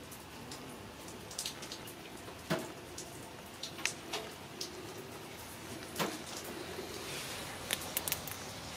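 Scattered light clicks and knocks, one every second or so, over a faint steady hiss: hand tools and parts being handled while working on a car engine's accessory belts.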